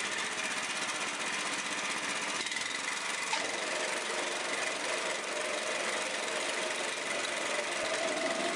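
Walk-behind trencher's small engine running steadily, with the chain and drive adding a rattling clatter.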